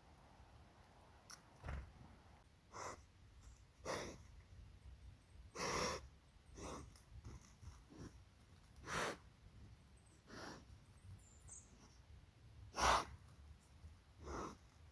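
A large animal's short, breathy exhalations close to the microphone, about a dozen at irregular intervals, the loudest near the end.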